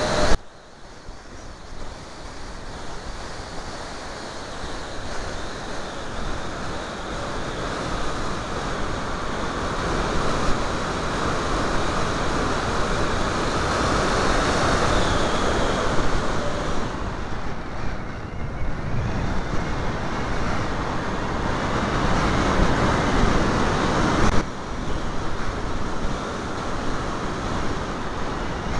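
Airflow rushing over the onboard camera microphone of a model aircraft in flight, a steady roar that swells and eases with the manoeuvres. There is a sharp spike and sudden dip in level just after it begins, and another abrupt drop near the end.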